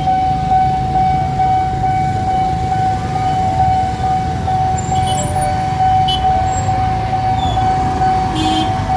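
Level-crossing warning alarm sounding one steady, unbroken high tone as the barrier closes for an approaching train, over the low rumble of queued traffic. A few short honks come near the end.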